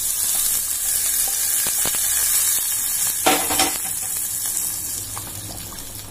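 Hot ghee with roasted cashews and raisins sizzling as it is poured into a steel pot of boiling milk, then a ladle stirring; the sizzle fades over the few seconds. A short squeak about three seconds in.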